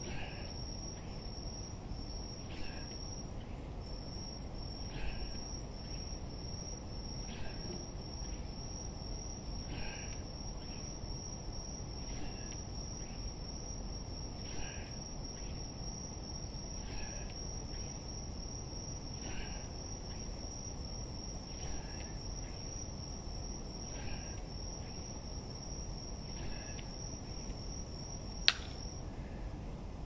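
Insect trilling steadily on one high, unbroken note. Faint short sounds come about every two and a half seconds. A single sharp click near the end, just after which the trill stops.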